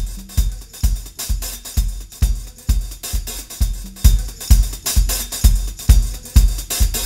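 Background music with a steady drum-kit beat: a kick drum about twice a second under hi-hats and cymbals.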